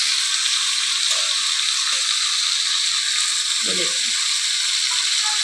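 Marinated fish fillets sizzling steadily as they shallow-fry in oil on a tawa griddle.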